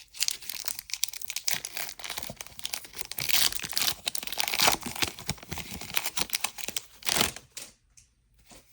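Foil booster-pack wrapper being torn open and crinkled in the hands, a dense run of crackling that stops about seven and a half seconds in.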